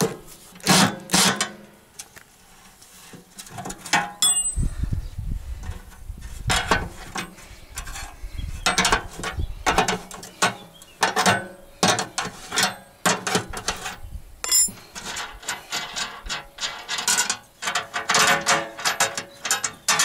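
Ratchet spanner clicking in short runs of rapid ratchet clicks as bolts on the mower's housing are turned.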